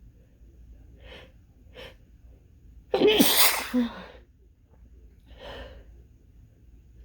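A person sneezing hard once. Two short breaths come before it, and a softer breath follows. The sneezing comes from heavy nasal congestion, which the person puts down to allergies or a cold.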